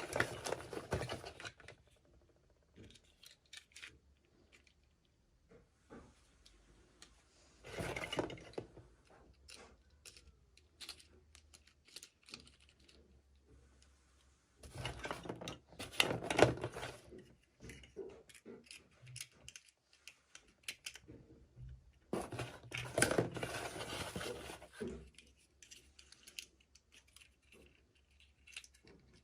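Hands unboxing small toys: packaging rustling and crinkling in four bursts, with scattered small clicks and taps of plastic pieces being handled in between.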